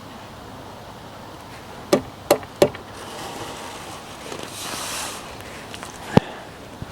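Three quick sharp knocks about a third of a second apart, then a single knock a few seconds later, over a light background hiss.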